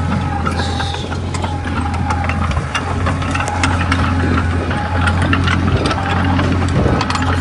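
Komatsu D20A bulldozer's diesel engine running steadily, with frequent short metallic clicks and clanks over it.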